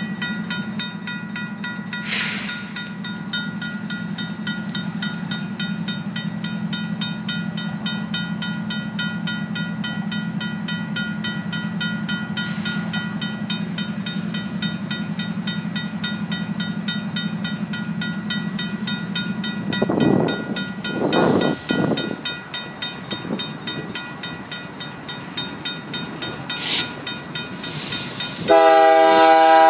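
A RACO mechanical crossing bell ringing with rapid, evenly spaced strikes while the crossing signals flash, over a low steady drone. Near the end the approaching Union Pacific diesel locomotive sounds its air horn, a loud chord of several tones.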